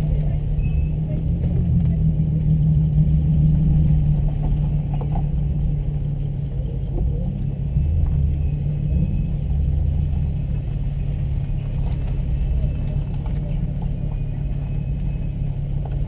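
Car engine running at low revs, a steady low drone.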